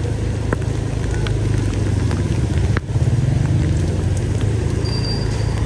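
Motorbike engine running steadily with a low, fast pulse, a few light clicks over it; the sound dips for a moment about halfway.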